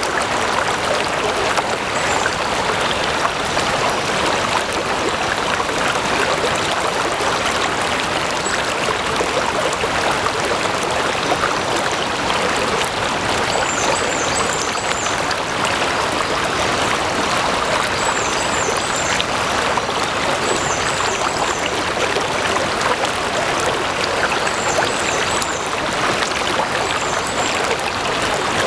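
A stream of water flowing steadily, an even rushing and trickling with no pauses. Short high chirps come through faintly a few times in the second half.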